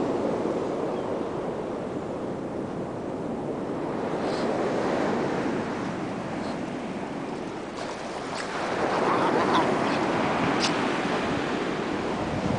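Ocean surf washing onto a beach: a steady rushing noise that swells and eases every few seconds, with a few faint high ticks in the second half.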